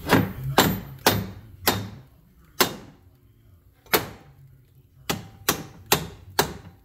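Hammer blows on metal: about ten sharp strikes at uneven spacing, with a longer pause in the middle, knocking a small metal plate back so a bolt can clear it.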